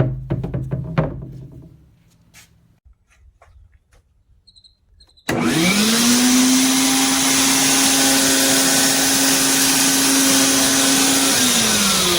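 A few knocks and clatter in the first two seconds, then a Vacmaster wall-mount wet/dry shop vac is switched on about five seconds in: its motor spins up with a rising whine and runs steadily with a loud rush of air. Near the end the motor pitch falls as it begins to wind down.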